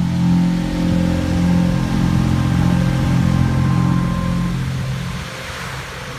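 A loud, steady low drone over the hiss of falling water spray at a water-screen fountain show. The drone fades out about five seconds in as the water screen shuts off.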